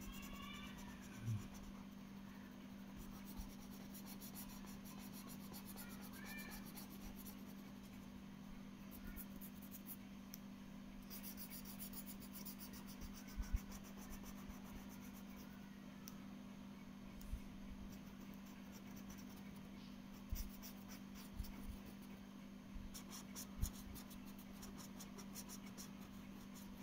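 Felt-tip marker scratching quickly back and forth on paper in bursts of short colouring strokes, faint, over a steady low hum. A few light knocks, the loudest about halfway through.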